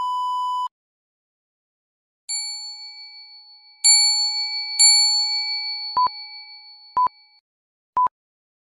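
Editing sound effects: a steady test-tone beep lasting under a second, then three bell-like notification dings that ring out and fade, then three short beeps a second apart like a film countdown.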